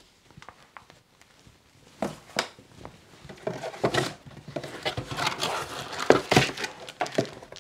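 Hands rummaging in a cardboard box: irregular knocks, scrapes and rustling of cardboard and packaging, starting about two seconds in.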